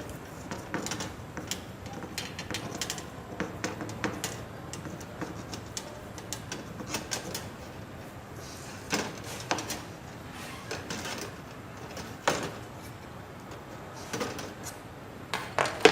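Insulating tape being wound by hand around an electric machine's coil: irregular light clicks and rustles from the tape roll and coil, with a few sharper taps about 9, 12 and 15 seconds in.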